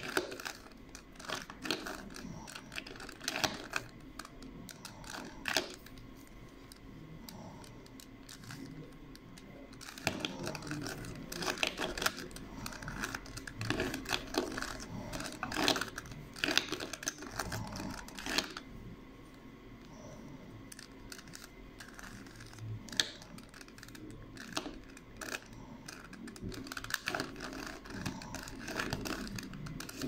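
Plastic 3x3 Rubik's Cube being turned by hand while it is solved: runs of quick clicks and clacks as the layers snap round, with a couple of quieter pauses between them.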